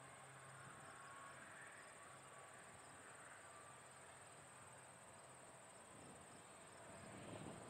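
Near silence: a steady, high chirring of crickets in the grass, with a faint, distant turboprop drone underneath that swells a little near the end.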